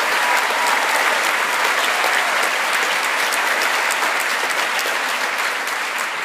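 Concert audience applauding: dense, steady clapping that eases slightly near the end.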